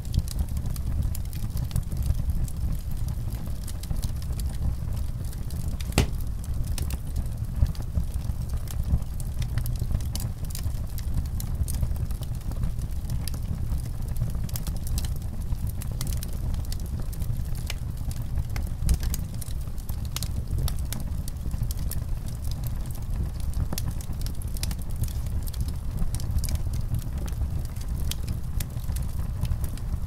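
Fire crackling: a steady low rumble with frequent small sharp pops, and one louder pop about six seconds in.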